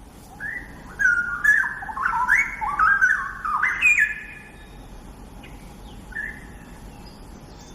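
Straw-headed bulbul (cucak rowo) singing one loud, bubbling phrase of rapid, stepped whistled notes lasting about four seconds, followed by a single short note a couple of seconds later.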